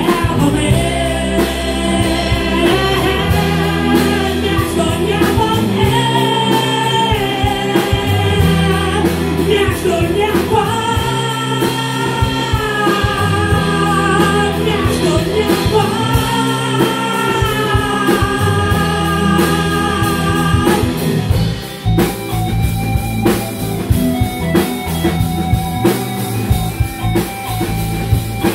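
Live rock band playing acoustic guitar, keyboard and drum kit, with long held, wavering melody notes over the band. About three-quarters of the way through the held notes stop and the drums and guitar carry on with sharper, rhythmic hits.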